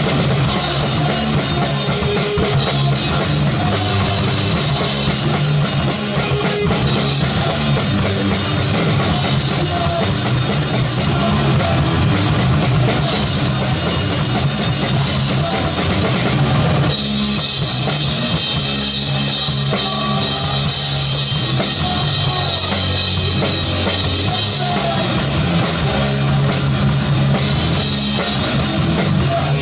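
A punk band playing loud and fast live, heard from right behind the drum kit: pounding drums and cymbals over distorted electric guitar and bass. The arrangement changes about seventeen seconds in.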